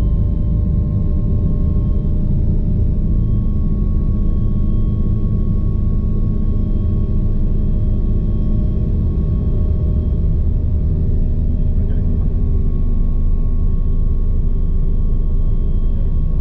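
Bell 429 twin-turboshaft helicopter running steadily: a loud, even rotor and engine rumble with a thin, steady turbine whine above it.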